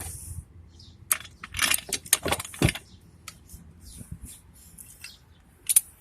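Scattered metallic clinks and knocks from a car jack being set in place under the car's jacking point.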